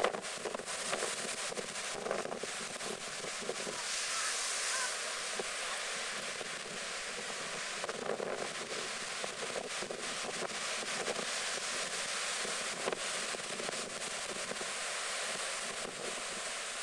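Storm surf breaking and washing over the end of a slipway, a steady rushing roar of sea that surges louder about four and again about eight seconds in, with wind buffeting the microphone.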